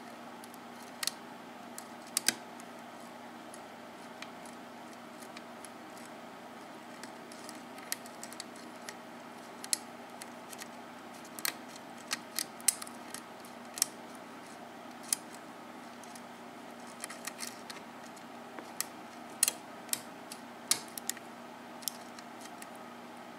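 Steel lock pick working the pins of a Sargent six-pin cylinder under light tension from a tension wrench: scattered, irregular small metallic clicks and ticks as the pick lifts the pin stacks, over a steady low hum.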